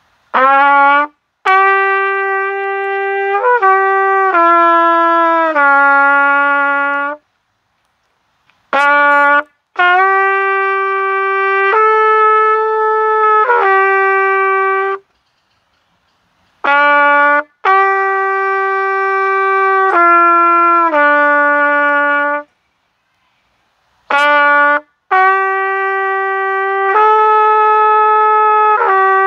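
Unaccompanied solo trumpet playing a slow melody in four phrases of long held notes. Each phrase opens with a short pickup note, and the player pauses for breath between phrases.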